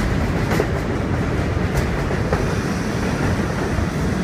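Kawasaki R188 subway train pulling out of the station, its cars rolling past with a steady rumble and a few wheel clicks over the rail joints.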